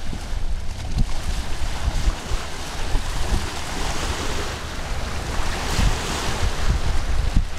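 Small waves washing up onto a sand-and-pebble beach, the wash swelling a few seconds in, with heavy wind buffeting the microphone. The waves are the wake of a passing tour boat breaking on the shore.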